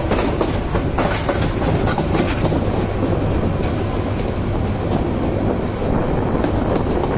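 Passenger train coach running along the track, heard from right beside the coach side: a steady rumble of wheels on rails with irregular clicks and rattles from the rail joints.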